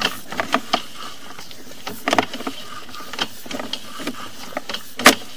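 Irregular clicks and knocks of a sewer camera's push rod being fed by hand down the line, with the loudest knock near the end over a steady low hiss.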